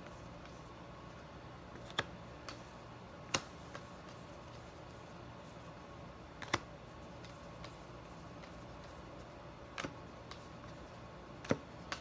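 Topps Heritage cardboard baseball cards being sorted through by hand, one card at a time slid off a stack onto the next, giving a handful of sharp card-on-card clicks at irregular intervals over a faint steady room hum.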